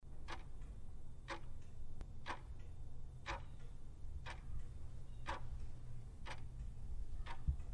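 Clock-ticking sound effect marking a countdown timer, one sharp tick each second, over a low steady hum.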